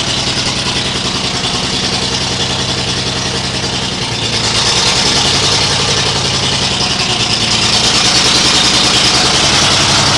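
Chevrolet 216 cubic-inch six-cylinder engine that drives the edger, running steadily. About four seconds in it speeds up a little and gets louder.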